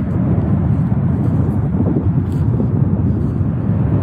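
Steady low rumbling noise in the open air, unbroken and with no distinct events.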